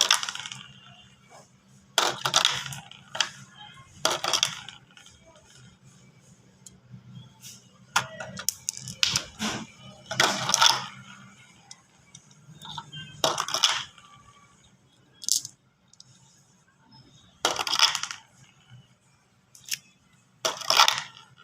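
Marbles rolling and clattering down a plastic track, in bursts of clicking and rattling every second or few seconds as batches run and knock together.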